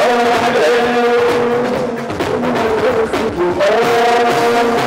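Live band music: a man singing held, stepping phrases into a microphone over electric bass guitar and drum kit.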